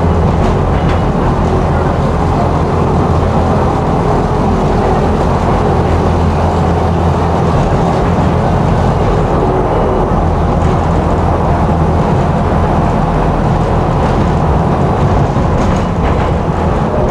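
Tram running between stops, heard from inside the passenger cabin: a steady low rumble of wheels on rails and running gear, with a few faint clicks near the start and near the end.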